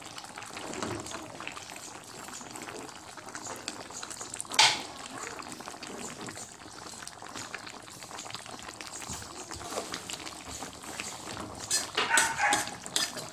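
Chicken pochero stew simmering in a pot, a steady bubbling with fine crackles, while a metal spatula moves through it. One sharp metal clank about four and a half seconds in, and a short burst of louder sounds near the end.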